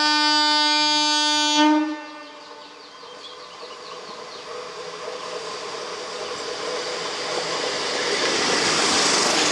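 Indian Railways electric train's horn sounding one long blast of about two seconds, then the rumble of the approaching train growing steadily louder.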